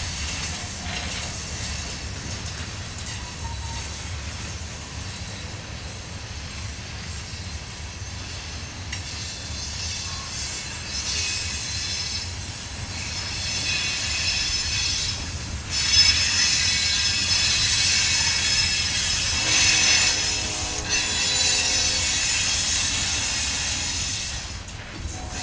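Freight train cars (covered hoppers and tank cars) rolling past on a curve, with a steady low rumble of wheels on rail. High-pitched wheel squeal from the curve builds from about ten seconds in and is loudest in the second half.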